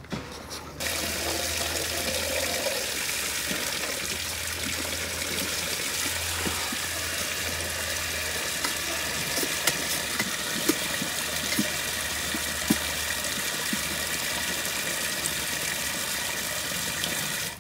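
A steady hiss that starts abruptly about a second in, with faint scattered clicks from puppies feeding at a steel pan bowl.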